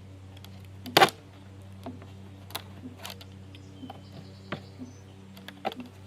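Irregular clicks and snaps of zip ties being cinched tight around a culvert pipe joint, with one louder snap about a second in.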